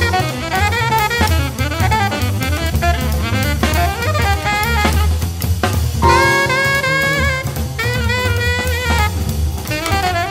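Background jazz music in a swing style: a drum kit keeps a steady beat under a bass line while a saxophone-like horn plays the melody.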